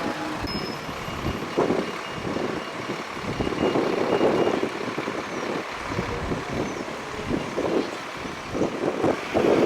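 Street vehicle noise rumbling unevenly, with a rapid, repeated high-pitched beeping during the first few seconds.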